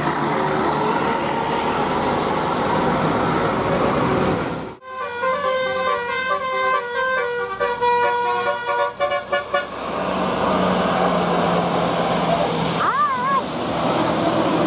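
A bus's basuri telolet horn playing a quick melody of stepping notes for about five seconds, starting abruptly about five seconds in, with road noise before and after. A short warbling tone sounds near the end.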